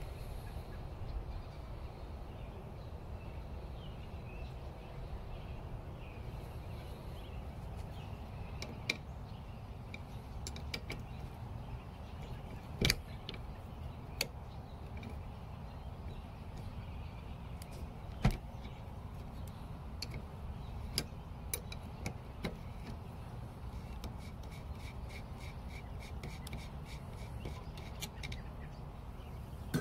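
Low, steady background rumble with scattered sharp metallic clicks and taps as a 12 mm combination wrench is handled, and a quick run of small clicks near the end.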